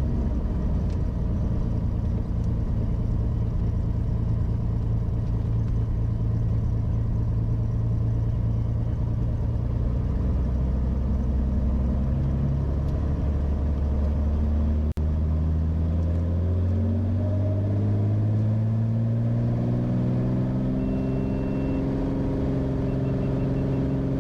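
Beechcraft Bonanza's piston engine and propeller heard from the cockpit, running steadily and then rising in pitch over the last several seconds as power comes up for the takeoff roll. A short high beep sounds near the end.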